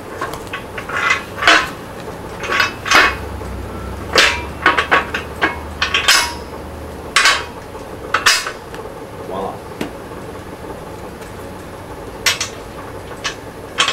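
Metal clanking and clinking as a steel tractor rim and its cast iron wheel centre are handled and fitted together: about a dozen sharp, irregular knocks, some ringing briefly.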